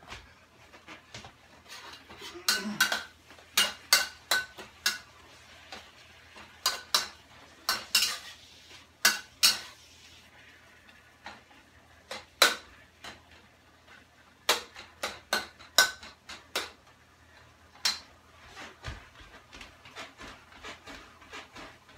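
A metal spatula clanking and scraping against a frying pan while stir-frying Chinese cured pork, in irregular clusters of sharp strokes throughout.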